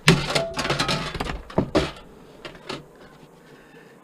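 Metal clanking and knocking from a desktop computer case being worked apart by hand: a cluster of loud knocks in the first two seconds, then a couple of lighter knocks.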